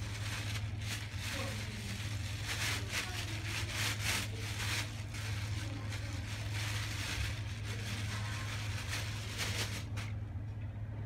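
Plastic bag rustling and crinkling as soft white soap is squeezed out of it by gloved hands, stopping about ten seconds in, over a steady low hum.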